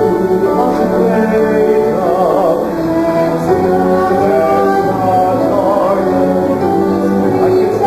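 Musical theatre singing, a man's and a woman's voice, over steady instrumental accompaniment.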